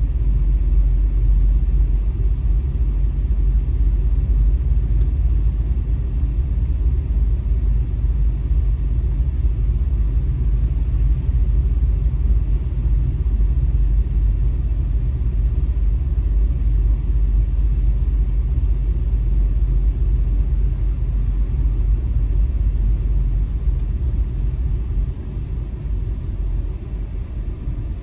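Steady low rumble of road and engine noise inside a moving car's cabin, easing off near the end as the car slows.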